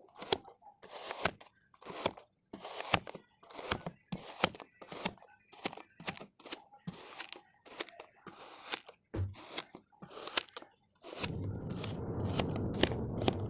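Kinetic sand being cut with a comb: a run of crisp, crunchy slicing strokes, about two or three a second. Near the end it turns into a denser, continuous crumbling crunch.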